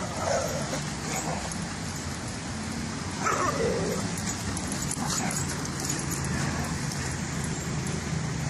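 Dogs barking as they scuffle, loudest at the start and again about three seconds in.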